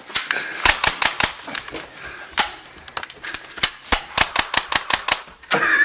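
Airsoft gun firing a rapid, irregular string of sharp cracks, several a second, with a short lull partway through.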